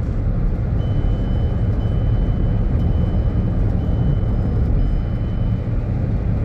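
Steady cabin noise of a car cruising on a highway, heard from inside: a low, even rumble of engine and tyres on the road with a lighter hiss over it.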